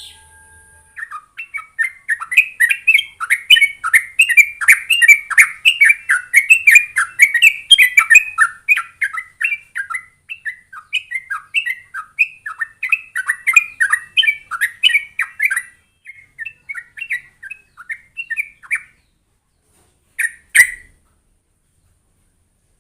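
Trucuk (yellow-vented bulbul) singing a long run of quick, bubbly chattering notes, starting about a second in and breaking off well before the end, followed by one short call.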